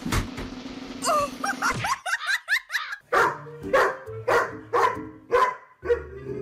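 Weimaraner barking at a cat in a rapid series of short barks, about three a second, while crouched in a play bow: play barking.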